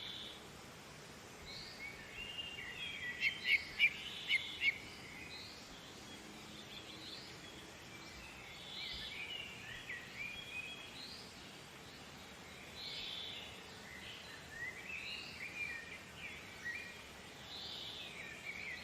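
Small birds chirping and singing in short whistled phrases that recur every few seconds, with a run of sharp, loud notes about three to five seconds in, over a steady faint hiss.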